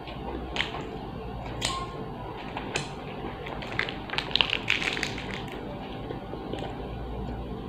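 Crunchy snack being eaten close to the microphone: scattered crunches and crackles, thickest about four to five seconds in.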